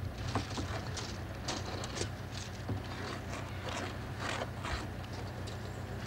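A low steady machine hum, with irregular light clicks and rustles over it.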